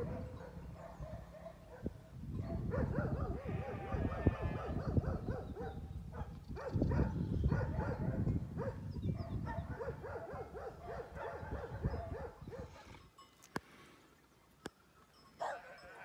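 Dogs barking over and over in quick runs of short calls, from about two seconds in until near the end, over a low rumble.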